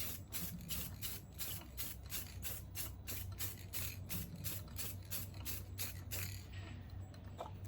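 Spar urethane sprayed from an aerosol can onto a wooden shift knob spinning on a lathe: a quick, even series of short hissing pulses, about four a second, that stops a little before the end, over the lathe's low steady hum.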